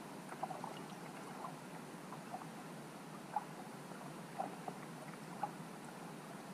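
Muffled underwater ambience picked up by a camera on a lake bed: a steady hiss with scattered faint clicks and ticks at irregular intervals. The sharpest click comes about three and a half seconds in.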